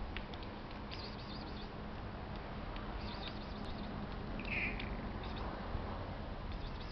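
A cat gives one short meow about four and a half seconds in, over a steady outdoor background hiss, with a few faint bird chirps before it.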